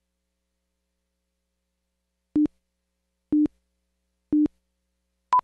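Countdown leader beeps on a broadcast slate: three short low beeps a second apart, then a shorter, higher-pitched beep near the end.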